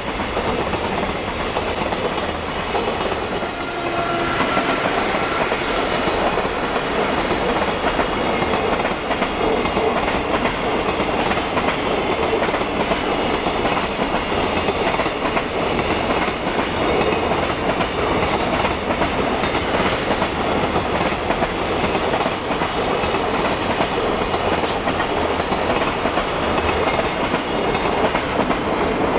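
Freight train of Koki container flatcars hauled by an EF65 electric locomotive rolling past, a steady rumble of wheels on rail with clickety-clack over the rail joints.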